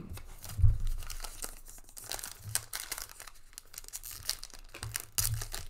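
Foil wrapper of a Panini Revolution trading-card pack crinkling and crackling as it is handled and torn open, with a couple of dull handling thumps, one about a second in and one near the end.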